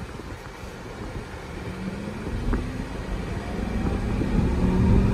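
Cabin sound of a 2024 Acura ZDX A-Spec electric SUV accelerating: a thin electric-drive whine climbs steadily in pitch from about two seconds in. Road and tyre rumble grows louder with it.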